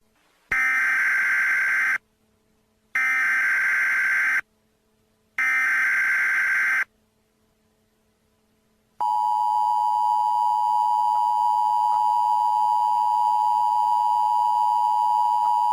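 Three long buzzy electronic beeps, each about a second and a half, with short silent gaps between them. After a pause, a steady continuous beep tone starts about nine seconds in and holds.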